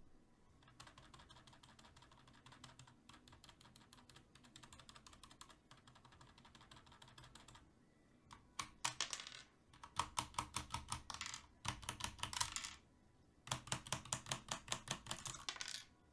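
Keys of a SteelSeries 7G keyboard with Cherry MX Black linear switches being mashed rapidly, the thin loose keycaps clacking. Quiet fast clicking at first, then four louder runs of rapid clicks from about eight seconds in.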